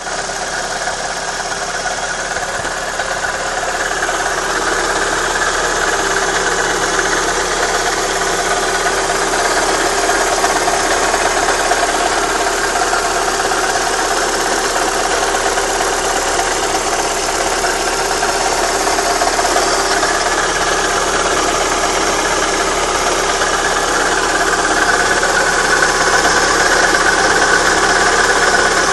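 Opel Astra G 1.6 16V's four-cylinder petrol engine running steadily, most likely at idle, with no revving.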